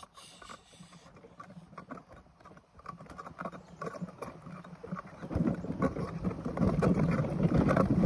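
Plastic ride-on toy wheels rolling over bumpy grass, rattling and clicking irregularly, much louder from about five seconds in.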